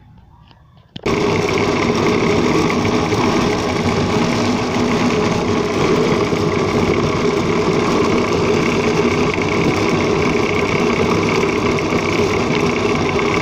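Electric food chopper switched on about a second in, its motor running steadily at full speed as the blades chop boiled, seasoned chicken and breadcrumbs into a paste.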